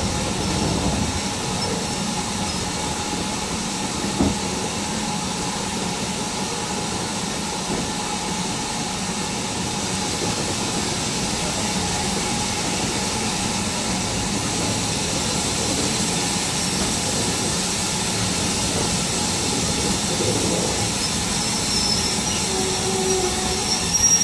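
Heritage railway passenger carriage running steadily along the track, its wheels on the rails, with a thin high wheel squeal on the curve at the start and again near the end, and a single knock about four seconds in.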